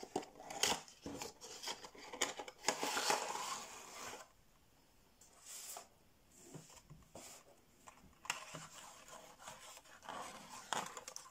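Cardboard box being opened by hand: the flaps and the white insert tray slide and scrape out, with rustles and small taps of packaging, busiest in the first four seconds and sparser after a short pause.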